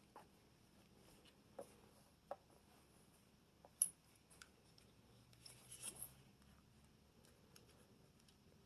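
Mostly quiet, with a few small faint clicks and scrapes of a grip screw and Allen wrench being worked into a 1911 pistol grip panel. The sharpest click comes about four seconds in, and a short cluster of scraping clicks follows about two seconds later.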